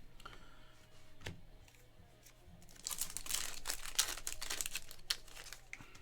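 Foil trading-card pack wrapper being crinkled and torn open, a dense crackling lasting about two seconds in the middle, after a single sharp click about a second in.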